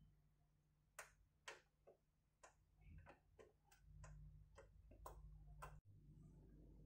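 Faint, uneven small clicks and taps, about a dozen over some four seconds, of plastic front-panel header connectors and their cables being handled at a PC motherboard, over a low steady hum.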